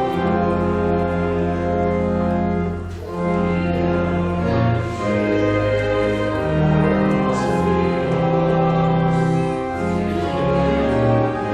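Church organ playing a hymn in long held chords over stepping bass notes, with a brief break between phrases about three seconds in.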